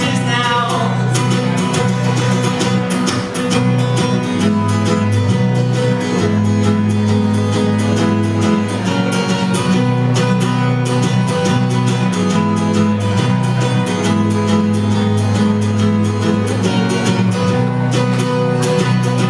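Acoustic guitar strummed steadily in an instrumental passage between verses of a song, with the last sung note trailing off in the first second.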